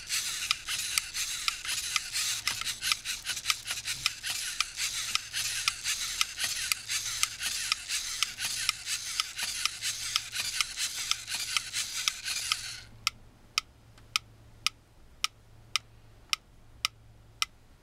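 Mechanical pendulum metronome ticking while riding on a moving LEGO Mindstorms robot, at first over a dense rattling noise from the robot's geared motors. About thirteen seconds in the rattling stops and only the ticks remain, evenly spaced at roughly one every 0.6 seconds.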